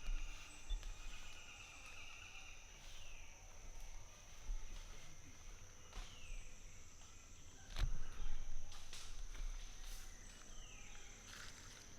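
Tropical forest ambience: a steady high-pitched insect drone, with a short falling call about three times and a few sharp knocks, the loudest a low thump just under eight seconds in.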